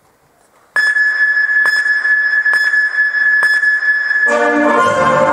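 Routine music played over hall loudspeakers: after a moment of quiet, a sustained high whistle-like tone with a tick just under once a second. Brass band music comes in about four seconds in.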